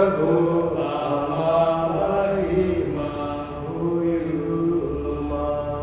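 A priest chanting a Gospel reading in a sung recitation tone, one man's voice holding long notes that step slowly up and down.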